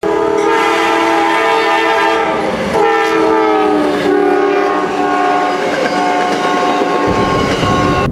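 Passing passenger train sounding its multi-chime air horn in several long blasts, the chord dropping in pitch as the train goes by, with the wheels clacking over the rails.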